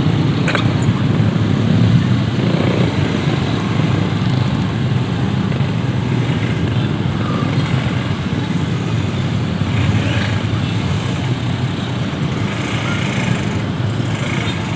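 Steady rumble of road traffic with motorcycle engines running, easing off slightly toward the end.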